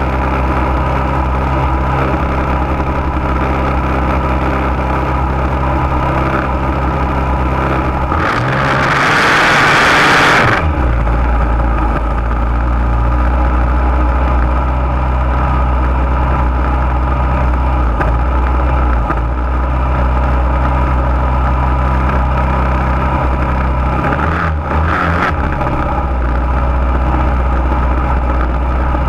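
Junior dragster's single-cylinder engine idling steadily, picked up by a camera mounted on the car. About eight seconds in, a loud hiss lasting a couple of seconds covers the engine's low note, and a brief wobble in the engine sound comes near the end.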